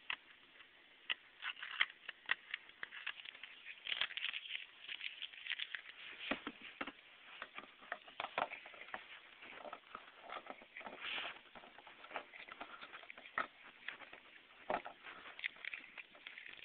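Irregular small clicks and rustles close to the microphone: handling noise from fingers moving on the camera.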